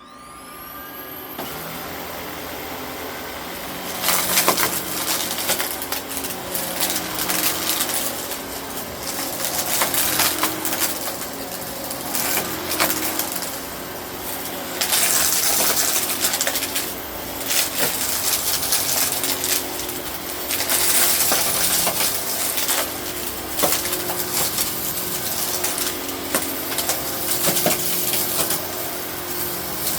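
Eureka Innova NEU700 upright vacuum cleaner switching on, its motor whining up to speed, then sucking up aquarium gravel from about four seconds in: a dense rattling crunch of small stones over the steady motor hum.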